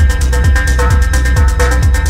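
Acid techno: a steady kick drum whose pitch drops on each hit, fast hi-hats, and a short repeating synth figure.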